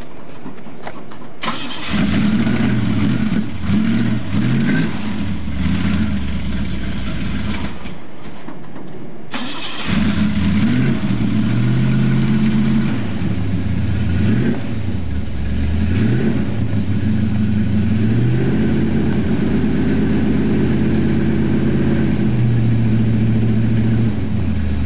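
Truck engine running and revving up and down repeatedly, with a break of about two seconds about eight seconds in before it runs again.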